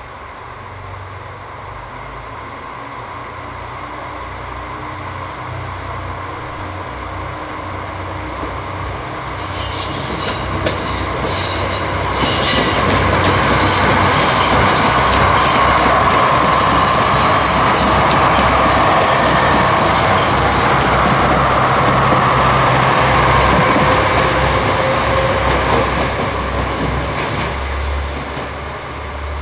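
Kyoto Tango Railway KTR001 'Tango Explorer' diesel train approaching, passing close and moving away. It grows steadily louder, with a low engine hum throughout. Rapid wheel clatter over the rail joints runs from about ten seconds in to just past twenty, together with a whine, and then the sound fades.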